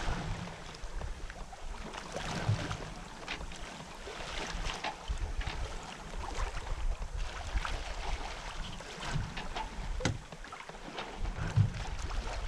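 Water hissing and splashing along the hull of a Westsail 32 sailboat moving under sail, with gusts of wind buffeting the microphone.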